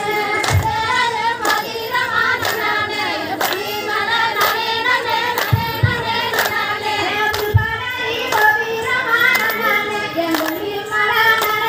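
A group of women singing a Kummi folk song, with the dancers clapping their hands in steady time, sharp claps about once or twice a second.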